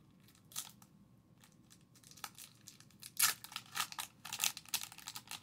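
Wrapper of a 2019-20 O-Pee-Chee hockey card pack being torn open and crinkled: a short tear about half a second in, then a busier run of tearing and crinkling from about three seconds in.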